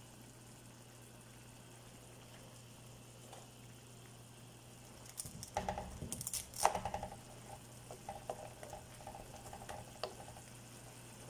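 Vegetable sauce simmering softly in a frying pan around a block of instant noodles. A wooden spoon knocks and scrapes against the pan a few times about halfway through, the loudest clack just before the middle.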